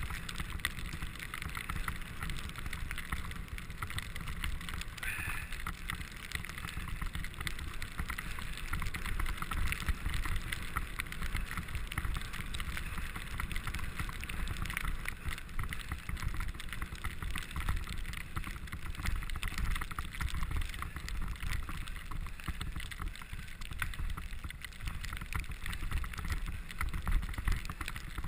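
Bicycle riding fast over a snow-covered trail: steady noise of the tyres on snow with fine rattling and clicking from the bike, and wind rumble on the microphone.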